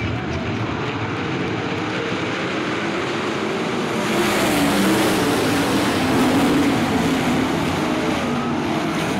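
A pack of 410 sprint cars running together on a dirt oval, their methanol V8 engines blending into one dense, wavering drone. It gets louder about four seconds in, as the green flag waves and the field gets back on the throttle.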